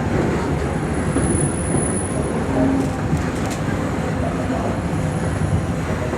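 Walt Disney World Railroad steam train under way: a steady rumble and rattle of the passenger car rolling along the track.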